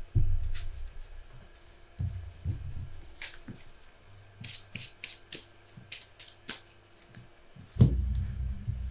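A deck of Flesh and Blood trading cards being shuffled by hand: a string of quick, short card clicks, with a few low knocks, the loudest near the end.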